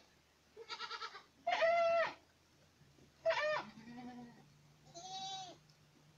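Young Boer goats bleating, about five calls in a row. Some have a wavering pitch, and one near the middle is deeper.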